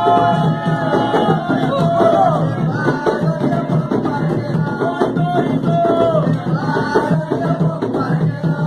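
Candomblé ritual music: singing over beating drums.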